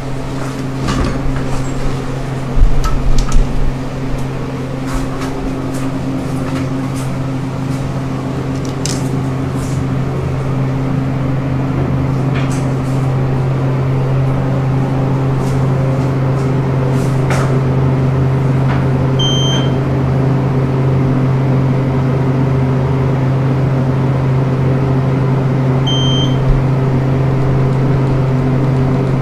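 Inside a General Elevator hydraulic passenger car: a steady electrical hum at one low pitch throughout, with scattered clicks and knocks of the doors and buttons in the first half. Two short high beeps come about six seconds apart in the second half.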